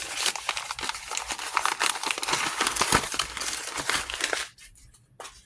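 A mailed package being opened by hand, its packaging crinkling and rustling in dense, rapid crackles that stop abruptly about four and a half seconds in.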